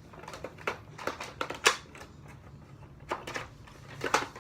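Sharp plastic clicks and clacks from a Nerf Air Warriors Ultra-Tek Sidewinder dart blaster being handled and cocked: a quick run of four about a second in, then a few more near the end.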